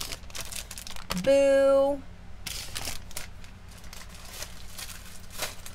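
Packaged craft items being handled: a run of light clicks and crinkly rustles, over a faint steady hum.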